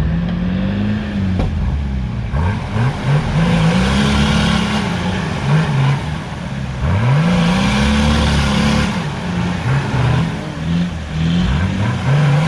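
Engines of a lifted Nissan Patrol bogged in deep mud and a Land Rover Defender pulling it on a tow strap, revved hard again and again: the engine note climbs and drops about four times as they try to drag the Patrol free.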